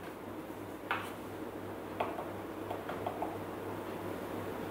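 A few quiet clicks and taps from handling a spice jar and teaspoon while measuring cinnamon into the Thermomix bowl: one about a second in, one about two seconds in, and a small cluster of ticks near three seconds, over a steady low hum.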